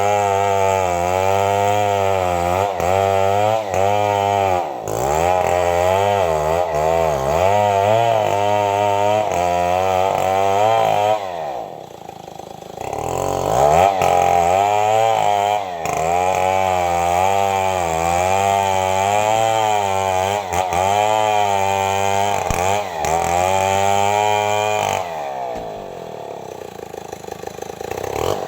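Stihl 070 two-stroke chainsaw running at full throttle in a cut, its pitch wavering as the engine bogs and recovers under load. About twelve seconds in it drops back briefly before revving up again. Near the end it eases off to a lower speed.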